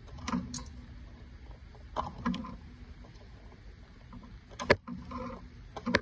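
Cables and plug connectors of a standing-desk base being handled and plugged into its control box: a handful of scattered clicks and light knocks, the sharpest a little before the end.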